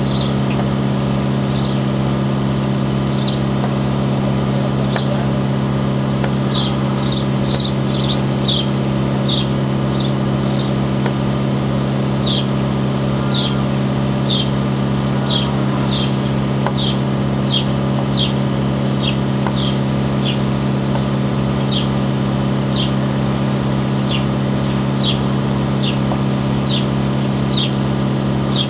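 A steady mechanical hum, like a motor running, with a bird repeating short, high, falling chirps about once or twice a second.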